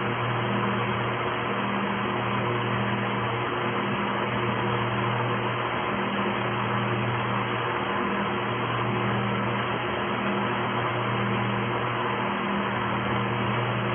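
A steady hiss with a low electrical or mechanical hum that drops out and comes back every second or two, heard through a security camera's narrow-band microphone.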